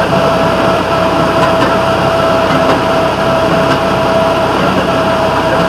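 Railroad motorcar running along the track, its engine and steel wheels on the rails making a loud, steady drone with a constant whine through it.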